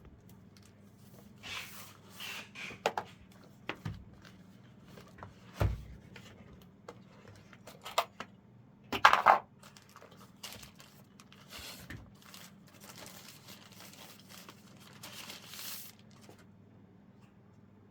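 Packaging being handled and torn open: irregular rustling, tearing and crinkling with scattered clicks and a dull knock, loudest about nine seconds in, over a faint steady low hum.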